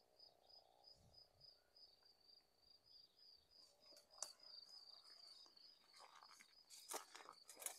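Faint cricket song in the grass: a thin, high, evenly pulsing trill, with a few soft rustles near the end.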